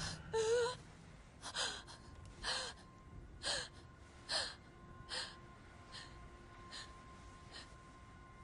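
A woman panting heavily, out of breath: a short strained gasp, then about eight sharp breaths just under a second apart that grow fainter.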